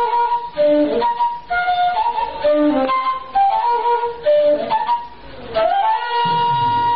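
A solo flute playing a melody of short held notes with slides between them. Near the end it slides up into one long held high note.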